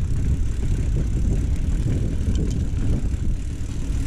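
Steady low rumble of a mountain bike rolling down a dirt trail: tyres on loose dirt and wind buffeting the microphone, with a few faint rattling clicks from the bike.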